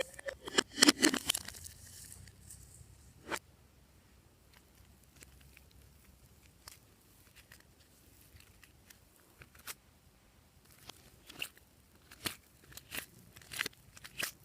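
Slime being squeezed and stretched by hand, with sticky crackling and popping clicks: a dense run of loud crackles about a second in, scattered single pops after that, and another run of crackles near the end.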